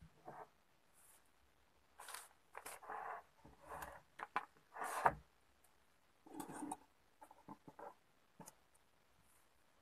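A stiff paper sewing pattern rustling as it is unfolded and pressed flat onto fabric, with hands sliding over the cloth. The rustling comes in irregular bursts, loudest between about two and five seconds in, with a few light taps and scrapes near the end.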